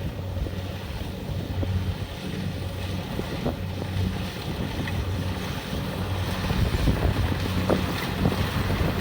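Kubota DC-70 Plus combine harvester's diesel engine running steadily while harvesting rice, a constant drone with a few short ticks from the machinery, growing slightly louder in the second half. Wind on the microphone.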